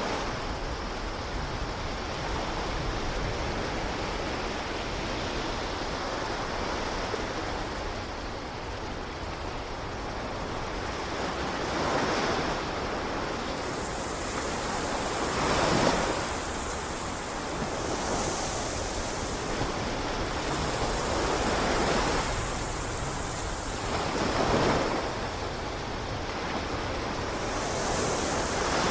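Ocean surf: a steady wash of waves, swelling and falling back every three or four seconds in the second half.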